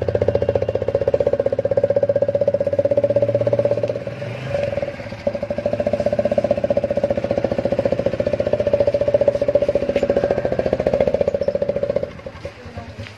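TVS Apache RTR single-cylinder motorcycle engine running through its silencer, which carries a home-made soda-can attachment at the outlet meant to make it sound like a KTM Duke. The exhaust gives a rapid, even pulsing note that dips briefly about four seconds in and turns quieter about twelve seconds in.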